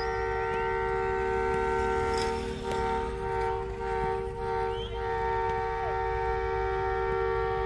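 Diesel locomotive horn held in one long steady blast, a chord of several pitches sounding together, dipping slightly in loudness partway through.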